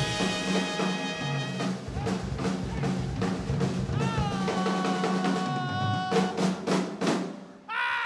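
Live swing big band: the drum kit plays a break of snare and bass-drum hits over held horn chords. About halfway through, the horns slide down in pitch and hold, and a cluster of sharp drum hits comes near the end.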